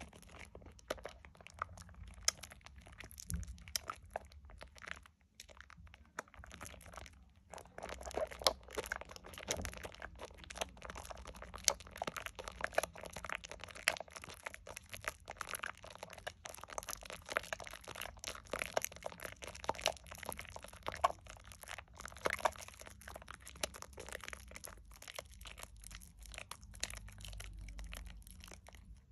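Hands squeezing and working thick Dove shea butter soap lather: wet squishing with dense, irregular crackling, and a short quieter spell about five seconds in.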